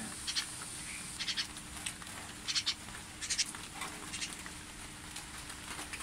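Tame magpie calling with short, high, harsh calls, repeated about once a second, over a faint steady hum.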